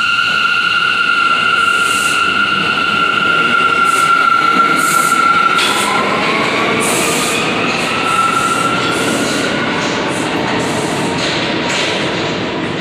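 New York City subway train pulling out of the station and running away down the tunnel: a steady rumble of wheels on rail with a high-pitched whine that dips briefly about halfway through, and a run of clicks as the wheels pass over rail joints.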